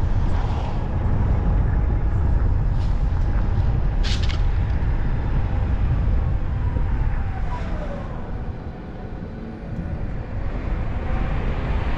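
Car driving along a city street: a steady low road and engine rumble. A short hiss comes about four seconds in, a whine falls in pitch around seven seconds, and the rumble eases for a couple of seconds before picking up again.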